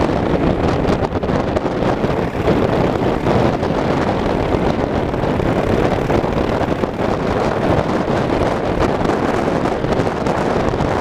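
Wind buffeting the microphone: a loud, steady rushing that flutters unevenly in level.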